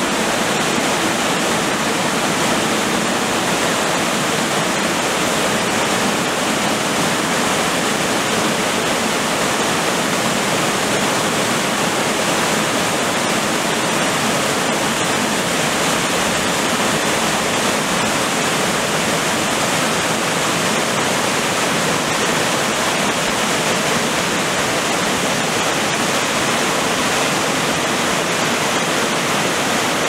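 Small waterfall cascading over rock ledges into a stream: a steady, unbroken rush of falling water.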